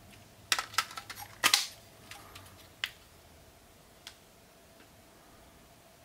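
Hard plastic clicks and knocks as the battery pack is fitted into a LEGO MINDSTORMS Intelligent Hub: a cluster of sharp clicks in the first second and a half, a single click near three seconds, and a fainter click about four seconds in as the hub's centre button is pressed. A faint steady hum runs underneath.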